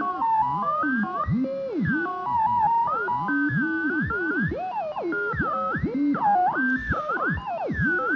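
Electronic synthesizer music made of quick swooping, gliding notes mixed with short held tones.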